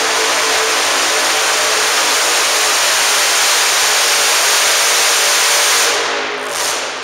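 Super modified four-wheel-drive pulling truck engine running loud and steady with a heavy rushing edge, easing off about six seconds in.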